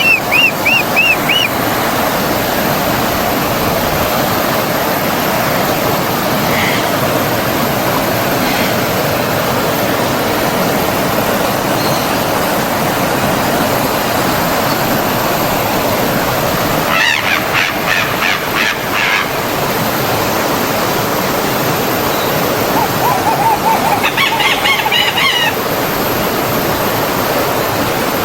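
Stream water flowing steadily, with birds chirping now and then: a quick run of repeated chirps at the start, another burst of chirps a bit past the middle, and lower calls mixed with chirps near the end.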